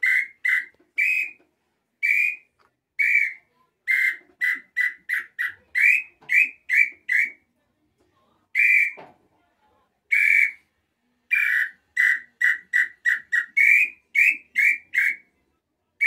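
Handmade wooden throat-style (garganta) tinamou call, blown by mouth to imitate an inhambu's song. It gives short whistled notes in runs that speed up, with pauses between the runs.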